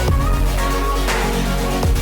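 Electronic background music with a steady beat: a deep kick drum, sustained synth notes and a cymbal swell.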